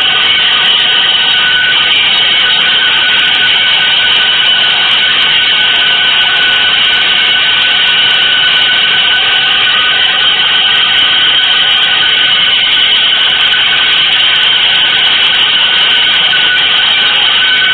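Avant-garde electronic noise composition: a loud, steady wall of dense hissing noise with a thin high tone held throughout.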